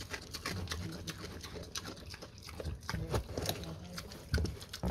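Pig chewing raw pumpkin, with many wet smacking and crunching clicks and low grunts now and then.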